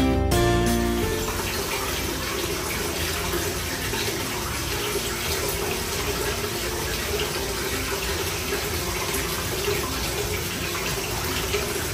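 Water running steadily into a bath, an even, continuous rush of pouring water.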